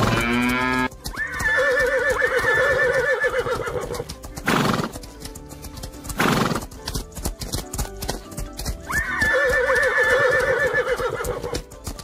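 Horses galloping, with a rapid clatter of hoofbeats and neighing: a falling whinny at the start, then a long trembling whinny about a second in and the same again about nine seconds in. Two short breathy blasts come between them.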